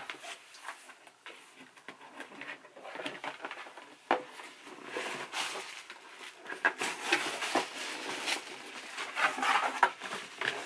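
Hands unwrapping and handling a wrapped handbag box: irregular rustling and scraping of the wrapping, with sharp knocks of the box at the start and about four seconds in, and busier rustling in the second half.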